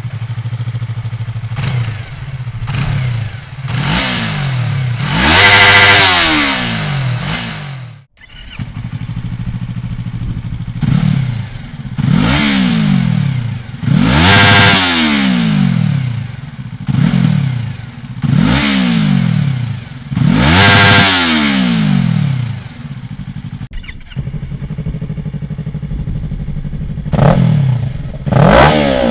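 Yamaha MT-03 parallel-twin engine breathing through a Dominator full exhaust system, blipped again and again so the revs rise sharply and fall back to a steady idle between. The revs come roughly every one to two seconds, with a couple of sharp dropouts, and one of the highest revs comes about six seconds in.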